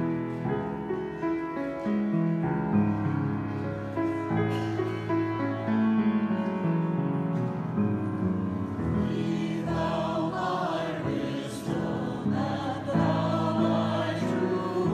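Small church choir of women and men singing a hymn with keyboard accompaniment, the voices growing stronger about nine seconds in.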